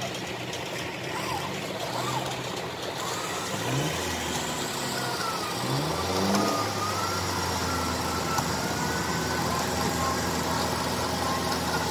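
Vehicle engine revving up over a few seconds, then holding steady under load while it pulls a stuck dump truck on a tow cable, with a thin wavering whine above it.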